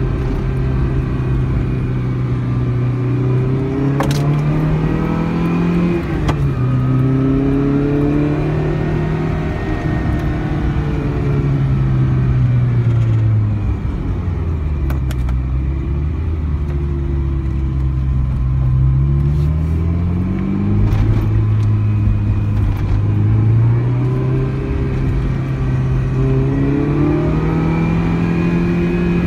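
1988 Ferrari 328 GTS's 3.2-litre V8 heard from inside the cabin while driving, its pitch climbing and dropping back again and again as it pulls through the gears. Midway it settles to a lower, steadier note for several seconds before pulling up again.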